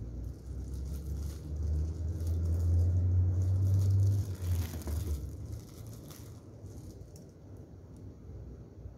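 A low rumble for about the first five seconds that then fades, with light taps and clicks of a knife and pieces of century egg being handled on a ceramic plate.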